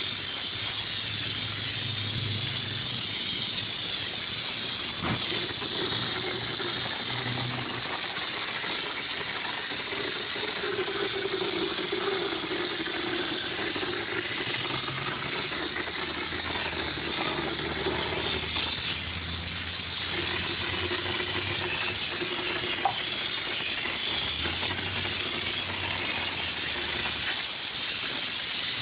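Air-fed hopper texture gun spraying a pre-coloured hard-coat finish: a steady hiss of compressed air and spattering coating. A low hum comes and goes underneath.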